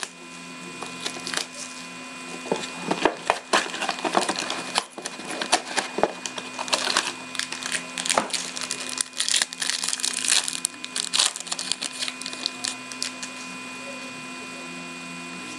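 Plastic wrapping and cardboard packaging of a hockey card box being torn open and handled: irregular crinkling, tearing and clicking, thinning out over the last few seconds.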